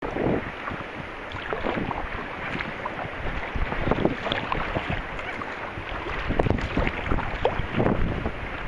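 Sea kayak being paddled over choppy sea water: irregular splashes and drips from the paddle and water lapping around the hull, with wind rumbling on the microphone.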